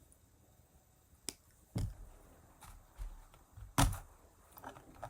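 Scattered small clicks and taps from hands working wire and beads while wrapping a charm, the loudest knock a little under four seconds in.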